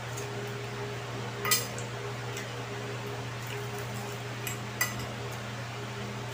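A fork clinking against a ceramic plate a few times during a meal, the sharpest clink about one and a half seconds in and another near five seconds, over a steady low electric-fan hum.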